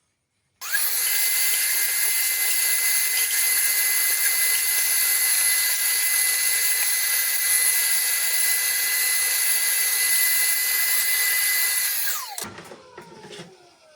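Vacuum cleaner running steadily with a constant high whine, cleaning wood dust out of a lathe motor housing. It is switched off about twelve seconds in, and its motor spins down with a falling whine.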